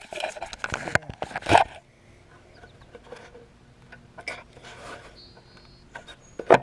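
GrassBuster deck scraper scraping caked grass off the underside of a mower deck: a few quick, loud scraping strokes in the first second and a half, then only faint scattered knocks and ticks.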